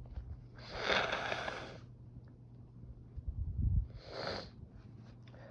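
A woman sniffing hard twice through a runny, stuffed-up nose during a sneezing fit, the first sniff long and the second short, with a low bump just before the second.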